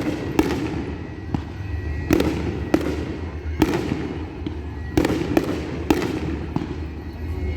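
Fireworks display: shells bursting in about ten sharp bangs at uneven intervals, a half second to a second and a half apart, over a steady low rumble.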